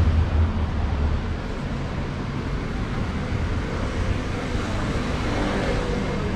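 Street traffic ambience: a motor vehicle's low engine rumble is loudest at the start and fades within the first second or so, leaving a steady wash of street noise.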